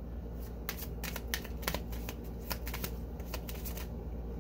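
Tarot cards being shuffled and handled by hand: a run of quick, irregular soft card clicks and flicks over a faint low hum.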